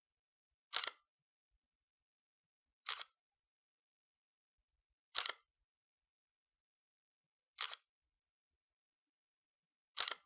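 Camera shutter clicking five times, roughly every two and a half seconds, each a quick double click with nothing heard in between.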